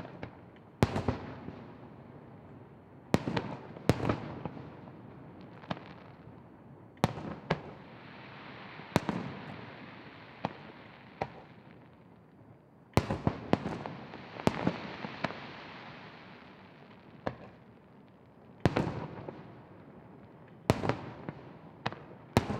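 Aerial firework shells bursting, about fifteen sharp bangs at irregular intervals over some twenty seconds, each trailing off in a rolling echo. A steady hiss fills the gaps between bangs through the middle stretch.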